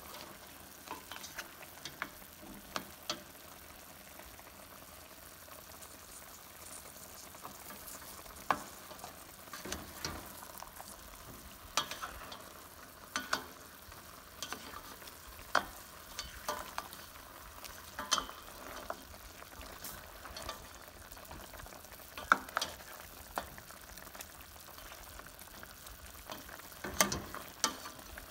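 Chicken adobo simmering and sizzling in its sauce in a stainless steel pan, with a black cooking spoon clicking and knocking against the pan at irregular intervals as the pieces are turned.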